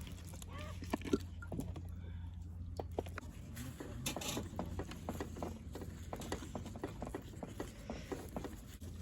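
Quick cleanup of a griddle: many short, irregular clicks, taps and scrapes of utensils and wiping on the plate.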